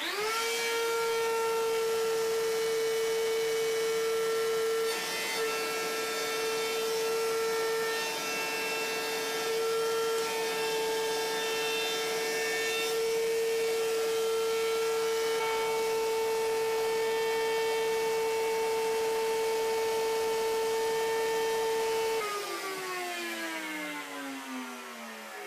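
Router in a router table spinning up at once to a steady high whine, running and routing wood with a round-over bit, with small changes in tone as the cut goes on. About 22 seconds in it is switched off, and the whine falls in pitch as the motor spins down.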